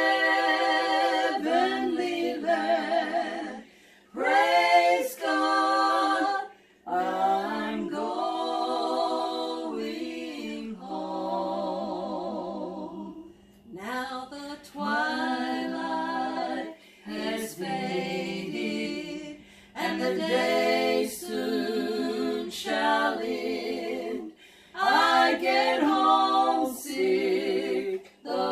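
Women singing a worship song together a cappella, in sung phrases broken by short pauses for breath.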